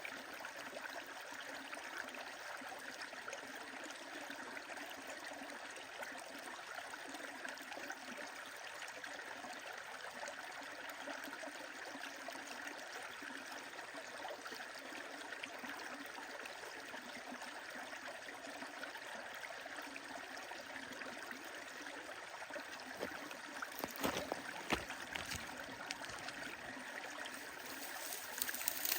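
A stream running steadily, with a wood fire crackling over it. A few louder pops come about 24 seconds in and again near the end.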